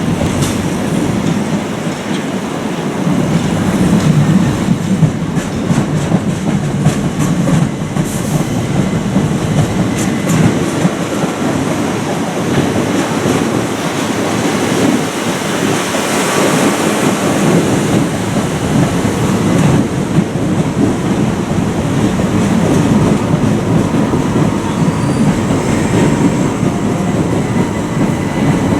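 Electric passenger train moving along the platform, a continuous rumble with the wheels clattering over rail joints and points.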